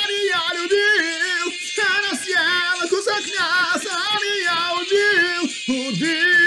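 A single high-pitched voice singing a melody with a wavering, trembling pitch, in short phrases, moving into a long held note near the end.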